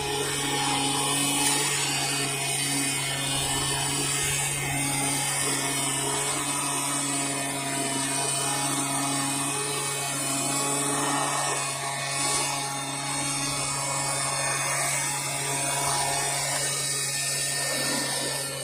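Pressure washer running steadily: a constant motor hum under a high hiss of spray.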